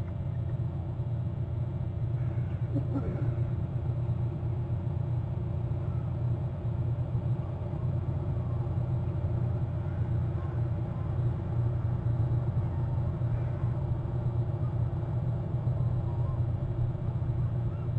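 Steady low rumble outdoors, with a few faint bird chirps over it, the clearest about three seconds in and again near the end.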